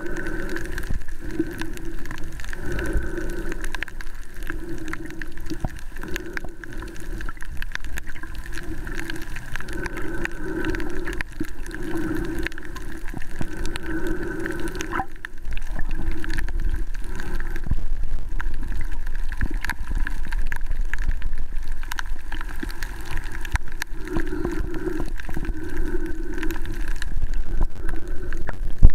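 Underwater reef ambience picked up by a submerged camera: a dense crackle of fine clicks over a watery hiss, with a low wavering tone that swells and fades every second or two. The whole gets louder about halfway through.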